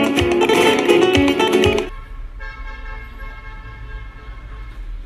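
Acoustic guitar strummed briskly for about two seconds, cutting off suddenly. A quieter steady low hum with a faint held tone follows, heard from inside a vehicle's cab.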